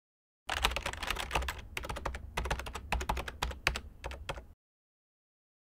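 Rapid typing on a computer keyboard, a quick irregular run of keystrokes that stops about a second before the end.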